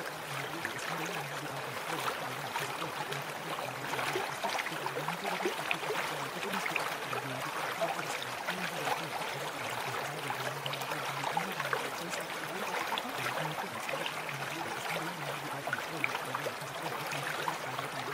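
Steady sound of a running stream, an even rush of water dotted with fine small splashes, the masking track of a subliminal audio. A faint wavering low hum lies beneath it.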